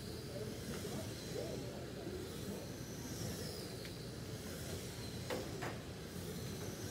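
Radio-controlled short-course trucks racing on an indoor carpet track: faint high motor whines that fall in pitch as trucks pass, over a steady hiss of running trucks. A few sharp clicks come about four seconds in and twice more a little later.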